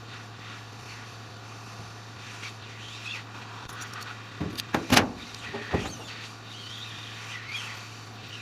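Tweezers working the hot metal shield (heat-sink tin) off a phone motherboard: a short cluster of sharp metallic clicks about halfway through, over a steady low hum.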